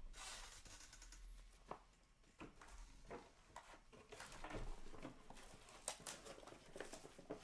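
Faint handling of trading cards and card packs on a table: scattered soft taps and rustles, closer together in the second half.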